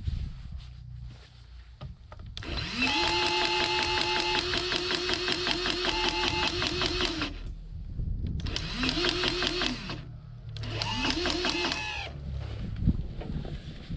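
Battery-powered grease gun motor running in three bursts, the first about five seconds long and the other two short. Each burst starts with a rising whine and carries a fast, even pulsing as it pumps grease into a snowblower bearing fitting.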